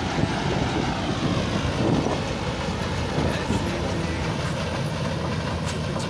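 Panesar combine harvester running steadily under load as it cuts wheat: a constant low engine hum over a dense, even mechanical noise from the cutting and threshing machinery.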